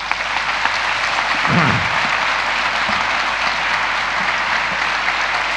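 Audience applauding steadily, with a brief voice heard about a second and a half in.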